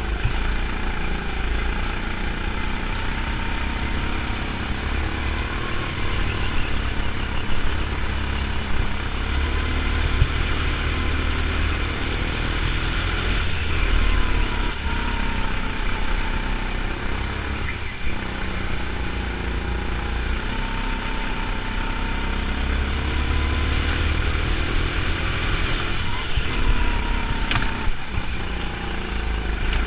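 Go-kart engine running continuously at racing speed, its pitch rising and falling every few seconds as the kart accelerates and slows through the corners.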